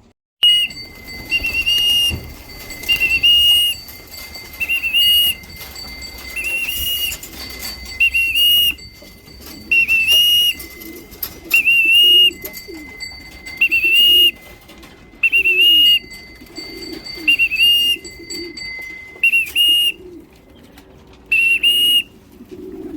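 Repeated short blasts on a pigeon fancier's whistle, about one a second, calling racing pigeons into the loft to be fed, with pigeons cooing underneath.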